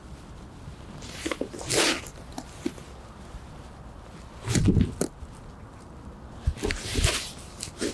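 A fabric blanket being shaken out and folded: a few separate brushing swishes and flaps, the loudest with a dull thump about halfway through.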